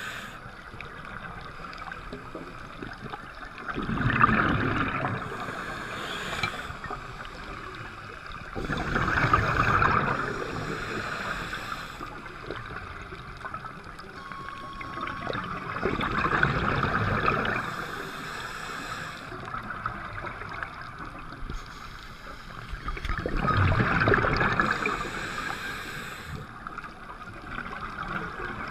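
Scuba diver's exhaled bubbles rushing from the regulator, heard underwater: four long bubbly bursts, one roughly every six to seven seconds with the breathing, over a quieter steady underwater hiss.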